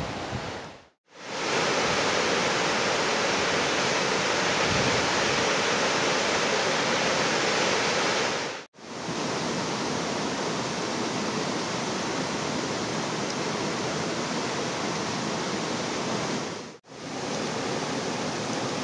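Steady rush of a fast mountain stream's water. It drops out briefly three times: about a second in, near the middle, and near the end.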